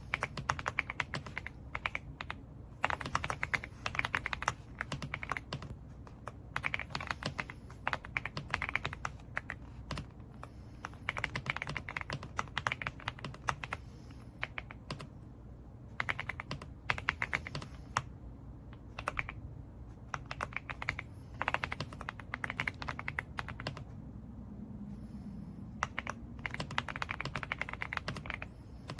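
Typing on an AULA F99 mechanical keyboard with pre-lubed linear switches: rapid runs of keystrokes in bursts of a few seconds, with short pauses between them.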